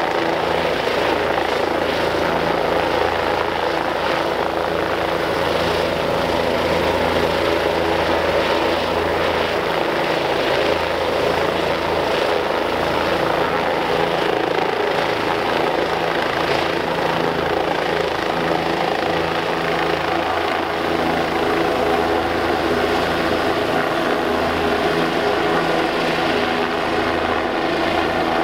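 Arizona Department of Public Safety rescue helicopter hovering close by with one skid on the rock, its rotor and turbine engine running loudly and steadily.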